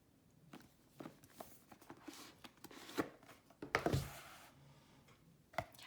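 Cardboard pull-out deck box being handled and slid open: scattered rustles and light taps of cardboard, with one firmer knock about four seconds in.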